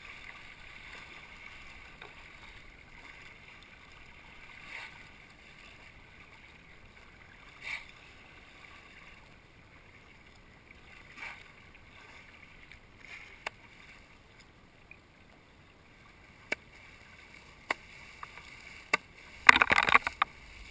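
Choppy water lapping and hissing around a plastic sit-on-top kayak, with a few soft paddle splashes and sharp knocks along the way. Near the end there is a loud burst of splashing as white water breaks around the bow.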